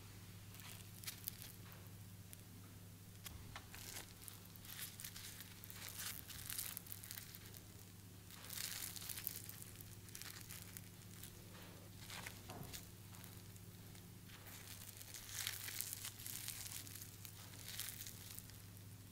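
Battered, fried zucchini fritters being torn apart by hand, giving several spells of crackly tearing over a faint steady low hum.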